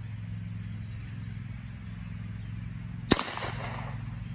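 A single shot from a Henry Garden Gun, a smoothbore lever-action .22 firing a .22 LR bird-shot shell, about three seconds in: one sharp crack with a short echo. A steady low hum runs underneath.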